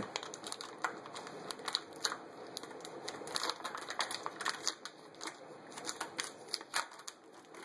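Diced pancetta starting to fry in olive oil in a skillet: a light sizzle with irregular crackles and pops of spitting fat.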